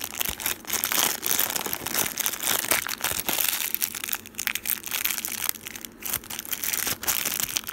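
Thin clear plastic bag crinkling and crackling as fingers handle it close up, in a steady run of sharp little crackles.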